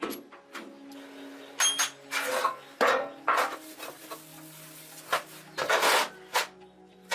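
Irregular scraping and rubbing strokes with a few knocks, about ten in all, over a faint steady hum.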